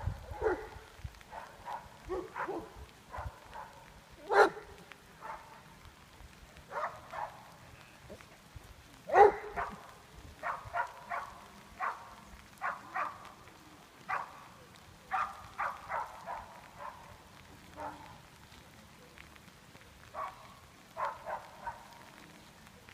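Greater Swiss Mountain Dog barking while herding sheep: quick runs of short barks, with two louder single barks in the first half.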